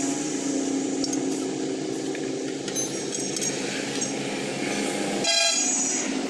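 Steady vehicle engine hum, with a short horn honk about five seconds in.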